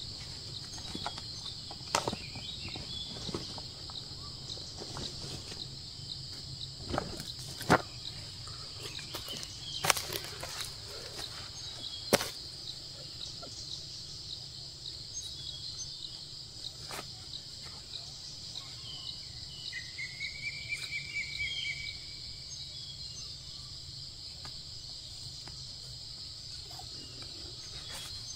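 Steady high-pitched insect drone, with a few sharp knocks about 2, 8, 10 and 12 seconds in. Around the middle a short chirping call rises and then holds its pitch for a couple of seconds.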